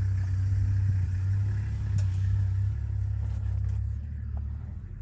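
Motor vehicle engine idling with a steady low hum, growing a little quieter near the end.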